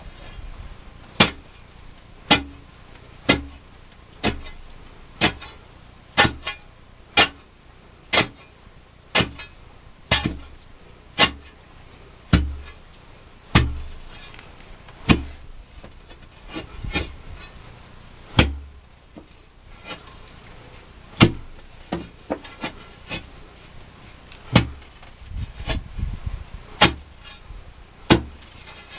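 A hand digging tool, such as a pick, striking the earth and gravel at the bottom of a narrow mining pit, about once a second. Each blow is a sharp chop with a dull thud beneath it, with a short pause about two thirds of the way through before the strikes carry on.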